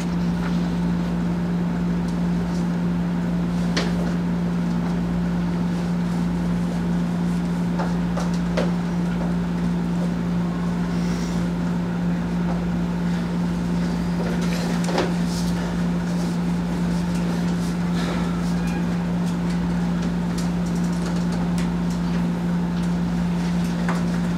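A steady low hum at one unchanging pitch, with a few faint taps now and then.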